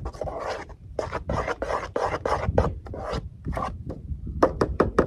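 Wooden spoon stirring cake batter in a pot, scraping in repeated strokes that get faster near the end.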